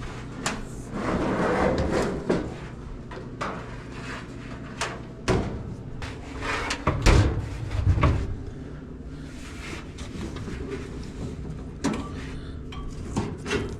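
Hands working on a Kenmore dryer: scattered clicks, knocks and rustling as parts are handled, with a few louder clunks about five, seven and eight seconds in.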